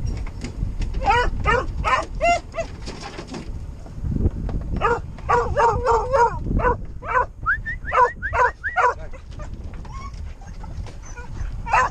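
Hunting hound barking and yelping in quick, repeated calls: a cluster about a second in, then a longer, denser run from about five to nine seconds.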